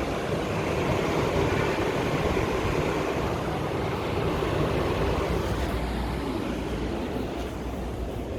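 Daikin RR140DXY1A4 ducted air conditioner's outdoor unit running steadily: an even whoosh of fan airflow over a low machine hum.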